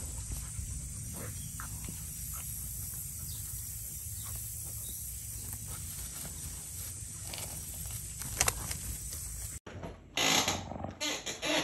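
A puppy and a cat play-fighting in the grass, faint against a steady low rumble of wind on the microphone; about ten seconds in, this cuts to louder, irregular dog growls and grunts as two dogs play-wrestle.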